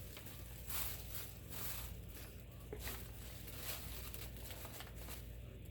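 Faint rustling and crinkling of a plastic bag as dirt is emptied into it from a cordless vacuum's dust bin, in short irregular rustles.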